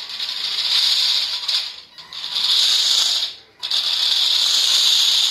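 Makeblock mBot Mega robot driving fast on its four geared DC motors and mecanum wheels over a marble floor: a steady rattling whir. It stops briefly twice, about two seconds and three and a half seconds in, as the robot halts and sets off again.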